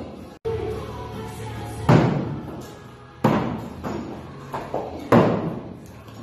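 Thrown axes striking the wooden target boards with loud thuds, three hard hits a second or two apart and a couple of lighter knocks in between, over background music.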